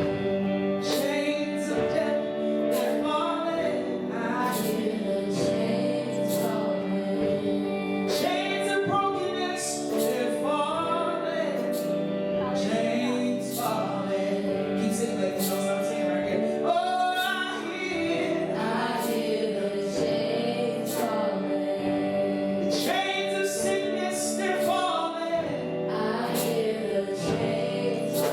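Gospel worship song: singers with wavering, gliding voices over sustained instrumental chords, with occasional sharp hits.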